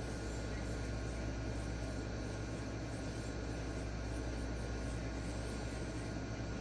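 D2 steel knife blade scraping back and forth across a 1x6 inch diamond sharpening stone in repeated freehand strokes, working the burr back to the other side, over a steady low hum.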